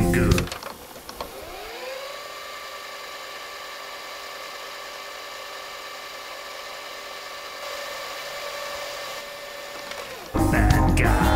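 VCR fast-forward sound effect: a tape-transport whine that rises in pitch for about a second after the music cuts out, then holds steady for several seconds before stopping abruptly. Loud rock music comes back in near the end.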